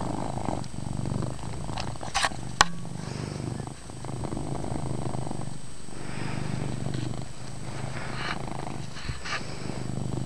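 Domestic cat purring loudly and steadily, with a sharp click about two and a half seconds in.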